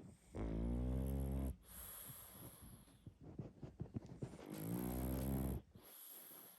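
A sleeping pug snoring loudly: two long, low, rattling snores about four seconds apart, with softer snuffly breathing and small clicks in between.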